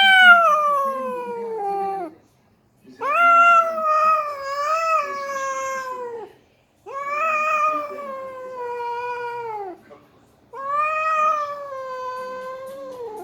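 Domestic cat caterwauling in a fight: four long, drawn-out yowls, each two to three seconds long and sliding down in pitch, with short pauses between them.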